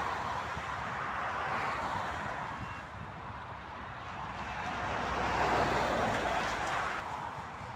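Motorway traffic passing by: the rushing tyre and engine noise of passing vehicles swells and fades, with one pass loudest about five to six seconds in.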